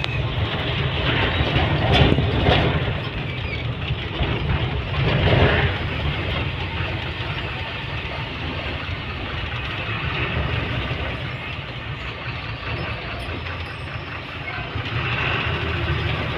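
Truck engine running, heard from inside the cab as the truck rolls slowly, with a steady low hum and two louder swells about two and five seconds in.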